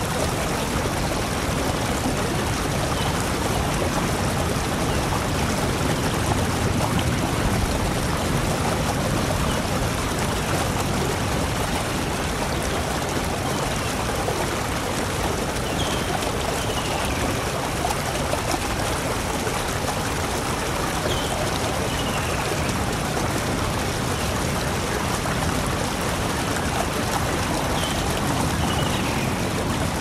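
Steady rush of falling water from a waterfall. A few faint, short bird chirps come and go over it.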